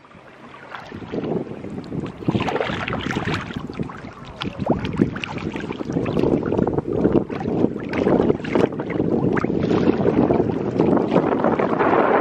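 Wind buffeting the microphone over water splashing and lapping against a kayak as it is paddled, growing louder about two seconds in.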